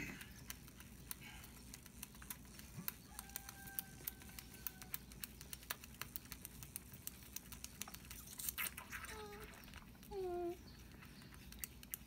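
Deer fawn sucking on a rubber bottle nipple, a run of quick wet clicks and smacks. Near the end come a few short squeaks, each falling in pitch, the loudest about ten seconds in.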